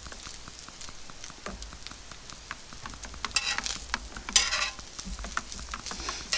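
A spoon stirring coffee grounds and hot water in a French press, with small light clinks against the pot. About three and a half seconds in and again a second later come two brief, louder scraping sounds.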